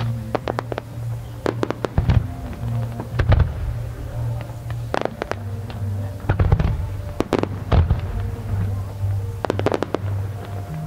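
Aerial fireworks going off: irregular sharp bangs and crackles, some single and some in quick clusters, about every second or so. Music with a steady bass line plays underneath.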